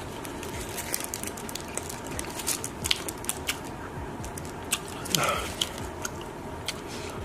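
Close-miked mukbang eating: a steady run of crisp, crackly bites and chewing, with many sharp snaps. A brief voice-like sound comes about five seconds in.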